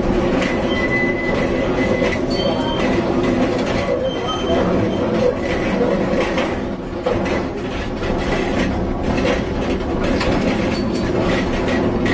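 Electric tram running on its track: a steady rumble of steel wheels on rail with faint clicks, and a few brief high wheel squeals.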